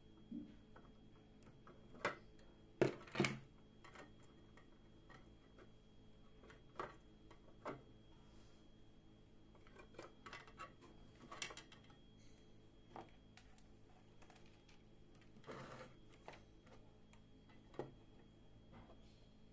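Quiet, scattered clicks and knocks of small objects being handled on a hard surface, a dozen or so spread irregularly, the loudest a quick double knock about three seconds in.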